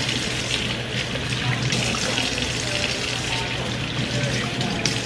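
Water running steadily from a pull-down kitchen faucet into the sink, splashing over hands being washed under the stream.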